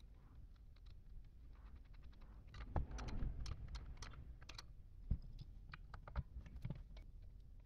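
Small metallic clicks and taps of a nut being threaded onto a hydraulic jack's wheel axle bolt and tightened with a ring spanner, busiest about three to four and a half seconds in, with a few sharper knocks after.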